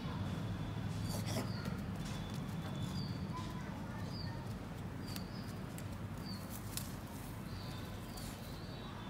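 Small birds chirping, short high chirps every second or so, over a steady low hum, with a few faint clicks.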